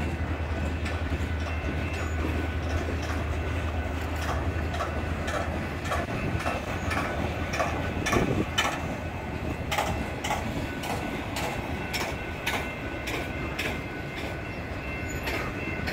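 Union Pacific manifest freight cars rolling past close by: a steady rumble of steel wheels on rail with a run of sharp clicks as the wheels cross rail joints. A low drone under it fades out about six seconds in, and the clicks are most frequent after that.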